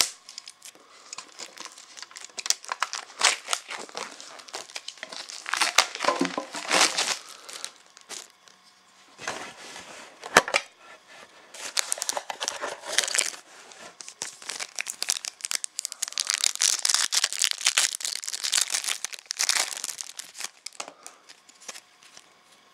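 Plastic shrink wrap on a trading-card tin crinkling and tearing as it is stripped off, with scattered crackles and clicks of handling throughout and a few sharper knocks about nine to ten seconds in.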